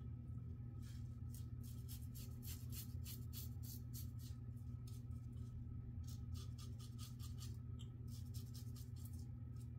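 Razor blade scraping through lathered beard stubble in short quick strokes, a crisp rasp three or four times a second, pausing briefly about halfway and again near the end. A steady low hum runs underneath.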